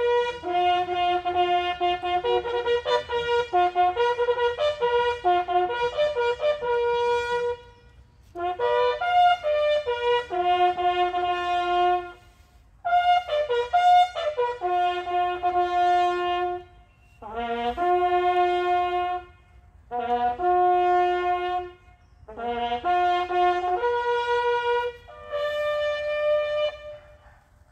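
A ceremonial bugle call played on a single brass horn: phrases of held, steady notes jumping between a few pitches, separated by short breaths. It ends on a long held note near the end.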